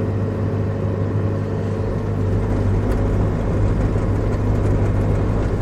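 Bobcat E55 mini excavator's diesel engine running steadily with an even low hum.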